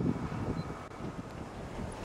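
Wind buffeting the microphone: an uneven low rumble that is strongest at the start and then eases.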